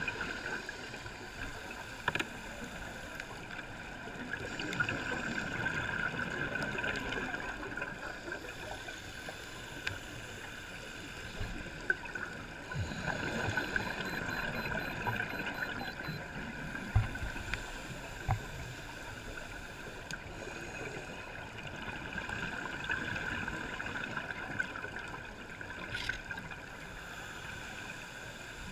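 Muffled underwater ambience heard through a camera's waterproof housing, with scuba divers' exhaled bubbles gurgling up in swells every several seconds and a few sharp clicks.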